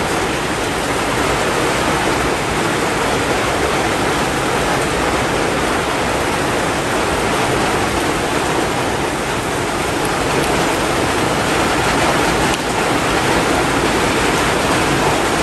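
A steady rushing hiss with no distinct events.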